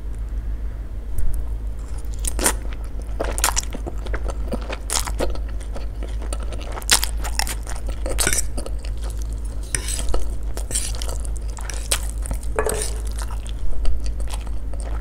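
Close-miked eating of spicy stir-fried instant noodles: chewing and wet mouth sounds, with scattered clicks of a fork against the plate. A steady low hum sits underneath.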